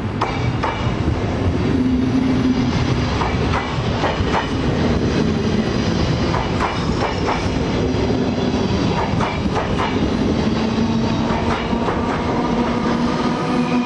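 NS DD-AR double-deck Intercity train running past close by, its wheels clicking irregularly over rail joints over a steady low hum.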